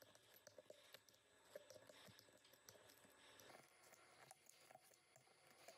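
Faint, irregular crackling and clicking as a hot soldering iron with a flattened brass-tube tip melts steel wool into cracked plastic.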